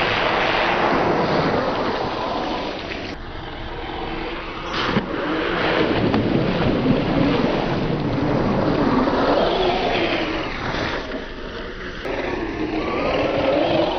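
Axial Yeti RC truck's brushless motor whining up and down in pitch with the throttle as the truck splashes through a muddy puddle, water spraying off its tyres.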